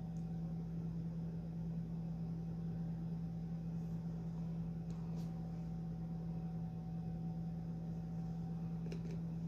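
Steady low hum with a thin higher tone and faint hiss, with a few faint ticks about five seconds in and again near the end.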